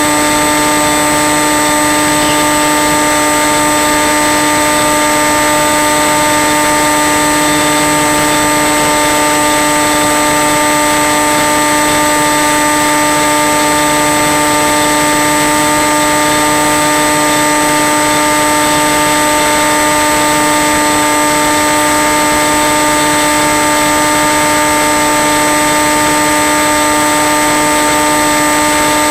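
Brushless electric motor and propeller of a Skywalker FPV plane running at a steady cruise throttle, heard through the onboard camera's microphone as a constant whine over wind hiss.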